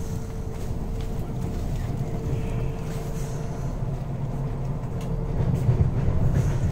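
Train 18 electric multiple unit heard from inside the passenger coach while running on the track: a steady low rumble, with a faint thin tone that comes and goes.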